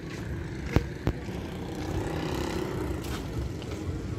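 A motor vehicle engine running steadily, with two sharp clicks close together about a second in.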